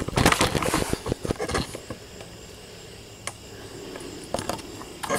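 A quick flurry of small clicks and knocks for about the first two seconds, then a few single clicks spaced a second or more apart.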